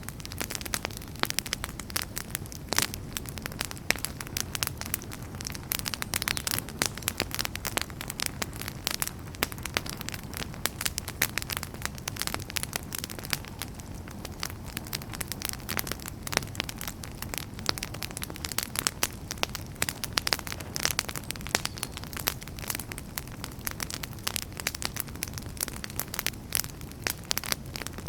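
Wood fire burning in a fireplace: a steady low rumble of flames with dense, irregular crackles and pops from the logs.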